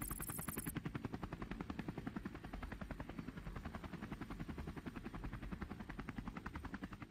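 Rapid, even low thudding that keeps up steadily without a break, like a rotor beating.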